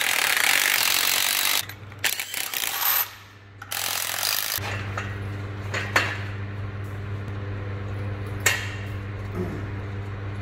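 Workshop tool noise: a power tool runs for about a second and a half, then a steady low hum with two sharp knocks.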